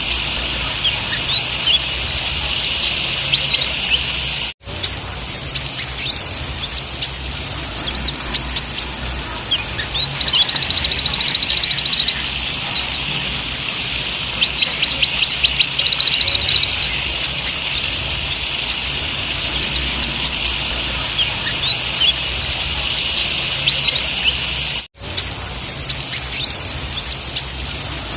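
Konin (kolibri ninja) sunbirds calling: a stream of sharp, high chirps broken by three rapid buzzing trills. The sound drops out for an instant twice, about a quarter of the way in and again near the end, as a looped recording would.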